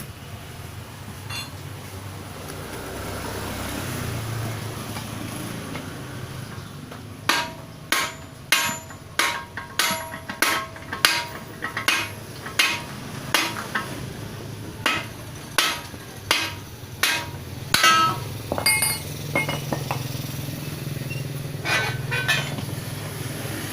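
Hammer striking metal about sixteen times in an even rhythm, roughly one and a half blows a second, each with a short metallic ring, during a bearing change on a truck transmission's connecting gear. A low steady hum runs underneath, and a few lighter metal clinks follow the hammering.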